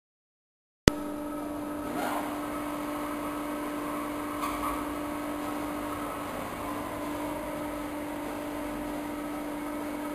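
Evashred EV110E Panther industrial shredder running, a steady electric machine hum with a constant tone. It starts abruptly about a second in, with a couple of faint knocks in the first few seconds.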